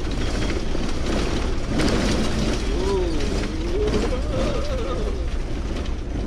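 Inside a motorhome driving on an unsealed dirt road: a steady low rumble with constant rattling and clicking from loose contents, including bottles of wine. A wavering hum rises and falls for a couple of seconds in the middle.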